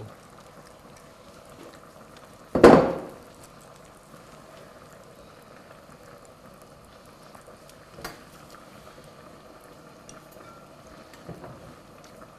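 Pot of okra soup with meat and tomato paste bubbling steadily on a gas stove. A single loud knock about two and a half seconds in, and a faint click around eight seconds.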